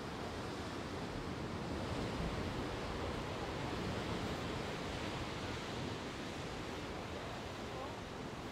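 Ocean surf breaking and churning against rocky sea cliffs: a steady rushing wash that swells slightly about two seconds in and then eases.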